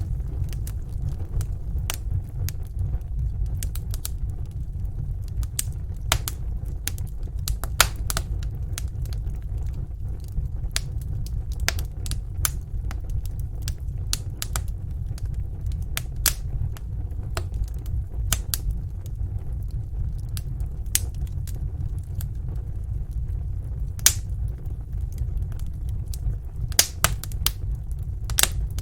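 Wood fire crackling in a fireplace: irregular sharp pops and snaps over a steady low rumble, with a few louder pops.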